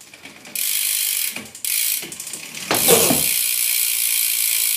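Freewheeling rear hub of a BMX bike clicking rapidly as the upside-down wheel spins freely: the hub's ratchet ticking, a fast buzzing rattle that starts about half a second in, dips twice and surges again about three seconds in.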